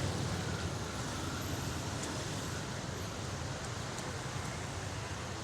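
Steady street ambience: a low, even hum of traffic with a few faint ticks, no clear single event.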